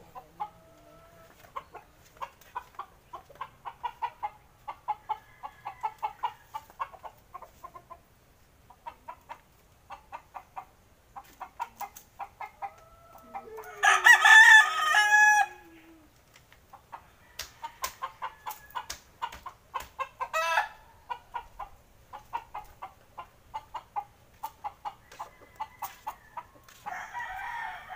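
Gamecocks clucking in a run of short, repeated calls, with a rooster crowing once, loudly, about halfway through.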